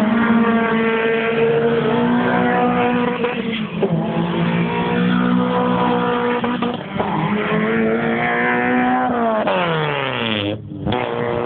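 Retro racing cars' engines running hard on the circuit, several passing in turn. Near the end one engine's note falls steeply as the car goes by, then dips briefly before the next engine takes over.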